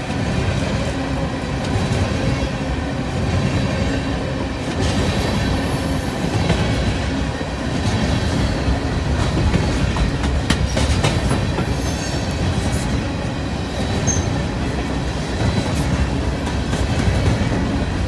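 Empty steel coal hopper cars of a freight train rolling past at speed: a steady rumble of steel wheels on the rail, with clatter and sharp clicks from wheels and couplers at intervals.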